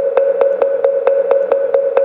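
Wooden fish (mõ) struck in a fast, even beat, about five strokes a second, over a steady ringing tone. This is the beat that keeps time for Buddhist sutra and mantra chanting.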